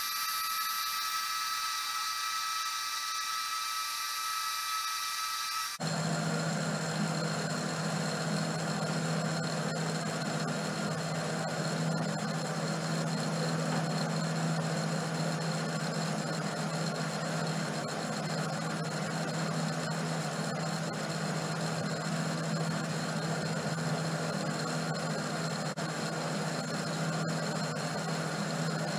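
Homemade metal lathe running steadily, spinning a cast iron pulley while a boring tool opens up its bore. About six seconds in the sound changes to a steady hum with a low tone.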